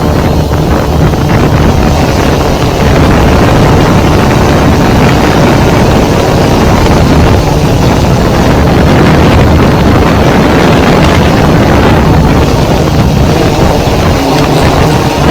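F550 hexacopter's electric motors and propellers running in flight, a loud steady drone with a low hum, mixed with wind buffeting the microphone; it grows louder about three seconds in.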